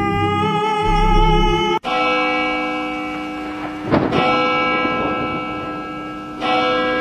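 Background music of sustained, held tones that change abruptly about two seconds in, with a brief noisy swell around four seconds and new notes coming in near the end.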